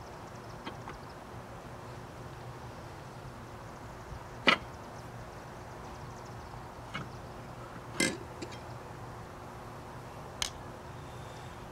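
Several sharp metal clanks and clicks spaced out over the seconds, the loudest a little over a third of the way in, from hands and tools working on the stripped Rambler 195.6 OHV engine block and crankshaft.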